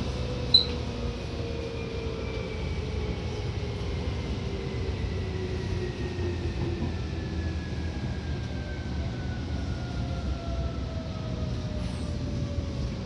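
Seibu 2000 series electric train running, heard from inside the car: a steady low rumble under the motor and gear whine, which slides slowly down in pitch as the train slows. A sharp click comes about half a second in.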